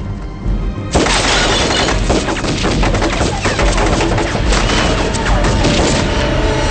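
A time bomb exploding in a film battle scene: a sudden blast about a second in, followed by several seconds of dense crackling and clattering debris, with dramatic film music underneath.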